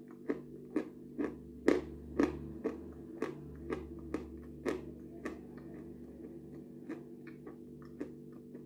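Crunching bites and chewing of a dry lump of edible chalk close to the microphone: crisp crunches about two a second, growing fainter and sparser in the second half.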